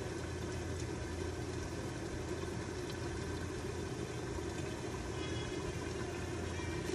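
Lidded pan of chicken curry boiling on the stove, over a steady, even low hum.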